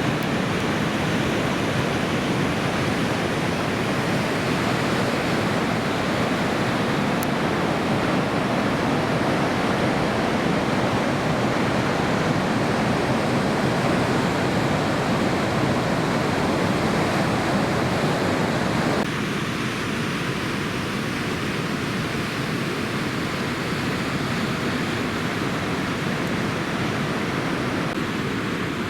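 Steady roar of heavy ocean surf breaking on a reef, an even wash of noise with no distinct wave strikes. The tone changes abruptly about two-thirds of the way through.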